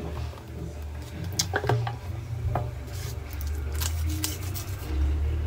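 Handling noise: rubbing and a few light clicks as a black folding case is opened and moved about close to the microphone, over a steady low rumble.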